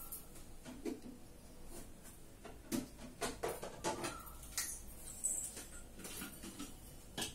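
Faint, scattered light knocks and clicks of kitchen things being handled, about ten of them at uneven intervals, while the cook fetches a bigger mixer jar.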